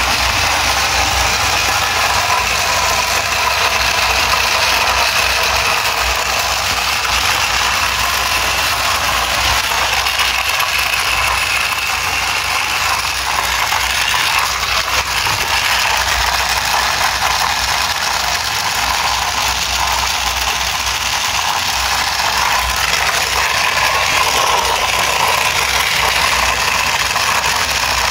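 Battery-motor-driven Miracle Bricks toy, a train of plastic gears spinning fast, giving a steady whirring clatter of plastic gear teeth.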